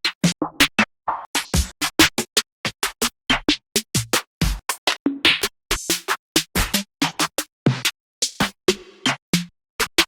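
Trap drum kit samples played one after another: short electronic drum hits and effects, some deep and bass-heavy, others bright and crisp, about three to four a second with a silent gap after each.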